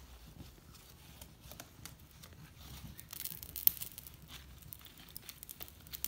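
Newly lit wood fire of dry sticks and paper crackling, with scattered sharp pops and a rustle of kindling being worked by hand. The pops cluster about three seconds in, the loudest just after.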